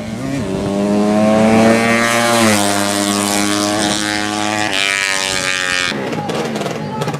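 A 200cc underbone drag-racing motorcycle engine at full throttle, its pitch climbing and then dropping in two steps, about two and a half and five seconds in. The sound falls away about six seconds in.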